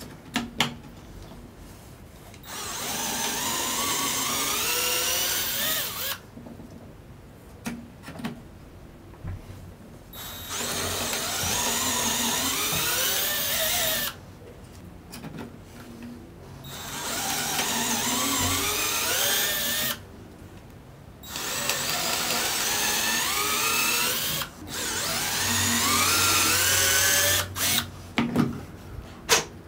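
Electric drill boring dowel holes in pine. It makes five runs of three to four seconds each, and its pitch rises during each run. A few light knocks fall between the runs, near the start and near the end.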